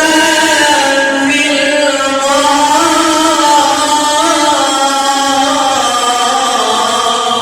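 A man reciting the Quran in melodic tajweed style, holding one long drawn-out note with small ornamental wavers in pitch.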